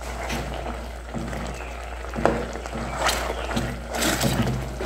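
Sugar, pineapple and onion simmering in a pot, the thickening syrup bubbling and crackling, with a few brief sharper pops, over soft background music.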